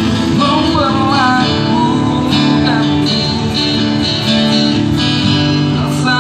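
Acoustic guitar strummed live, with a man singing into a microphone in a few phrases, played through a loudspeaker.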